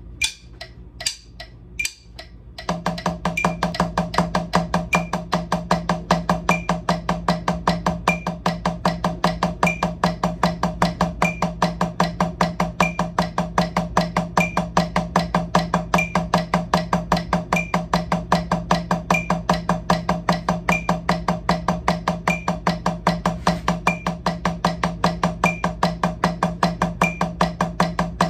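Wooden drumsticks playing steady alternating single strokes, right-left, on a drum practice pad: eighth notes at 152 BPM, about five strokes a second. After a few separate taps, the even stroke train starts about two and a half seconds in.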